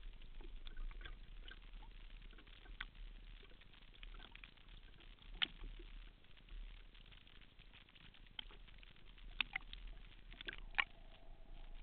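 Scattered sharp clicks and taps over faint water noise, heard through the waterproof housing of a speargun-mounted camera bobbing at a choppy lake surface, with a low hum underneath.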